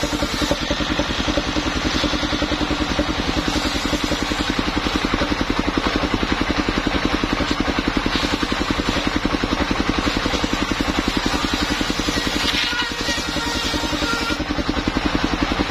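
Engine of a vehicle-mounted circular sawmill running steadily with an even, rapid pulse, driving the saw blade; it eases briefly about three-quarters of the way through.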